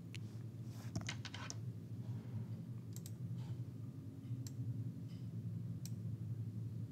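Faint, scattered small clicks, a quick cluster about a second in and single ones every second or so after, over a steady low electrical hum.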